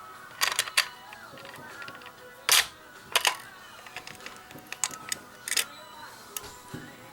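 Sharp plastic clicks and knocks, in about six short clusters with the loudest about two and a half seconds in, as alarm devices are handled and fitted in place. Music and voices from a TV run quietly underneath.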